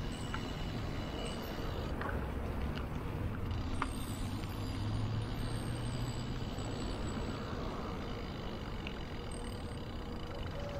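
A bicycle ridden along a paved path: a steady low rumble of wind on the microphone and tyre noise, with a few faint clicks from the bike.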